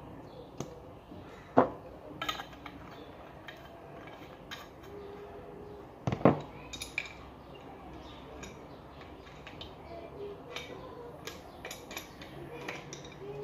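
Metal basin-tap parts and tools clinking and knocking as they are handled on a table, with two louder knocks, one about a second and a half in and one about six seconds in.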